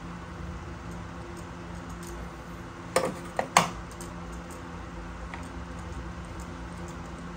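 Metal socket tools clinking: three sharp clinks close together about three seconds in, over a steady low hum.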